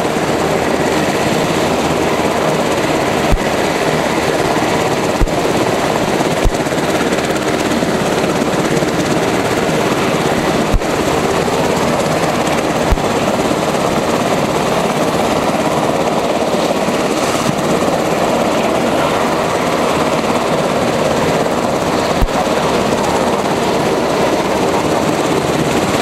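Sikorsky SH-60K Seahawk helicopter's twin turboshaft engines starting up: a steady turbine rush and whine while the main rotor begins to turn and gathers speed. A few brief low thumps stand out now and then.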